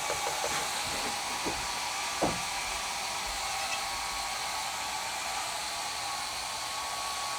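Hair dryer blowing steadily, drying newborn goat kids.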